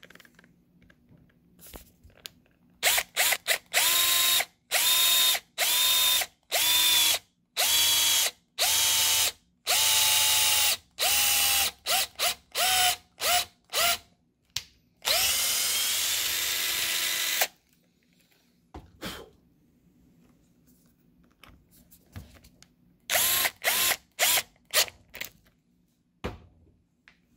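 Cordless drill with a tapered countersink bit drilling into a pine 2x4. It runs in a series of short trigger bursts, each sagging in pitch at its start, then in one longer steady run, and ends with a few short bursts.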